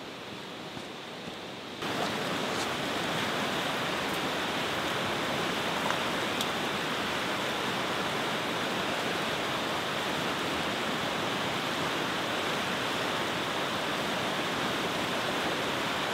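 Steady rushing of river rapids, a dense even roar of fast white water. It comes in abruptly about two seconds in, after a quieter stretch.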